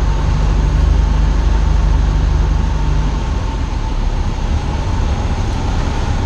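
Cessna 172 Skyhawk's piston engine and propeller running steadily, heard inside the cabin with loud airflow noise. One low engine tone drops out about three seconds in.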